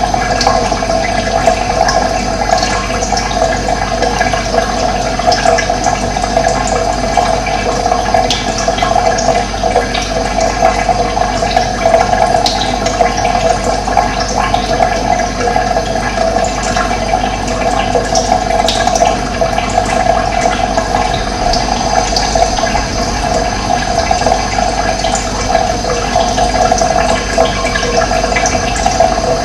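Running water flowing steadily with an even, unbroken rush. A few faint, brief high chirps of birds sound now and then.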